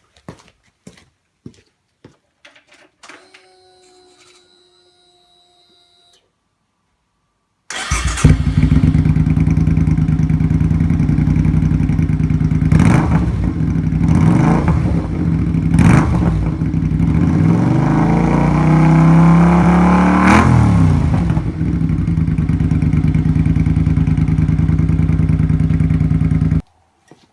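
Suzuki Intruder Classic V-twin engine starting after about eight seconds and idling through a Kentec low-rider muffler freshly repacked with glass wool, blipped twice and then revved up in one longer rise; it stops abruptly just before the end. Before it starts there are a few faint clicks and a faint hum.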